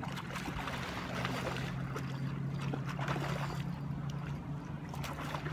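A hooked carp splashing at the surface during the fight, with a steady low hum underneath.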